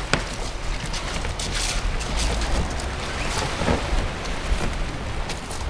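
Strong wind buffeting the microphone with a low rumble, over small waves washing onto a shingle beach, with a few short clicks.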